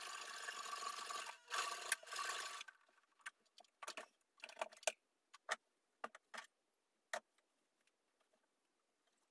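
Electric sewing machine stitching a straight seam through a pot holder and dish towel, running steadily with a short break about a second and a half in, then stopping after about two and a half seconds. Scattered soft clicks and rustles of fabric being handled follow.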